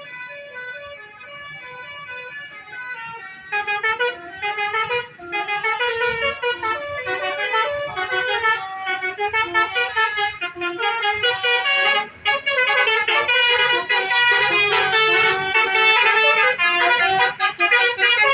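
Tour bus's Basuri multi-tone 'telolet' horn playing a tune of quick stepped notes. It is faint at first and loud from about three and a half seconds in.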